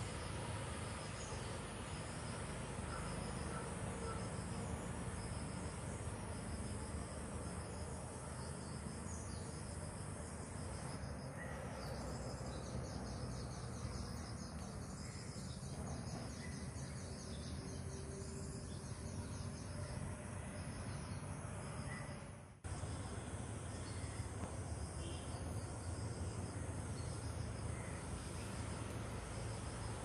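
Insects chirping steadily: short high chirps repeat at an even pace, with a faster, denser trill joining in the middle. A steady low background rumble runs underneath, and the sound dips briefly about three quarters of the way through.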